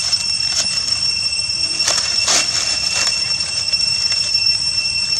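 Steady high-pitched insect drone holding one pitch with a higher overtone, over a few short scuffles in dry leaves that cluster around two to three seconds in.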